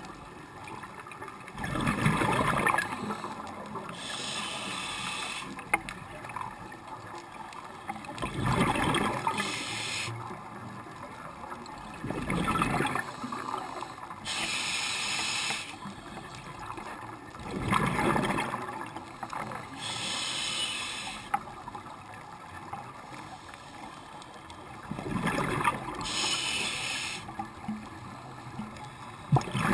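Scuba diver breathing through a regulator underwater: hissing inhalations alternating with rushing bursts of exhaled bubbles, about five breaths, one every five to seven seconds.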